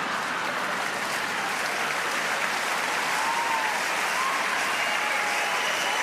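Crowd applauding: a steady, unbroken wash of clapping.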